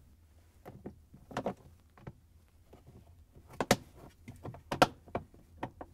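Plastic cover panel tapping, knocking and clicking against the refrigerator's plastic liner as it is handled and fitted into place, in scattered short clacks with the loudest about three and a half and five seconds in.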